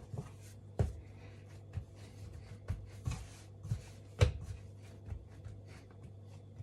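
Scone dough being kneaded by hand on a floured worktop: irregular dull thumps and knocks as it is pushed and turned, the loudest about four seconds in, over a steady low hum.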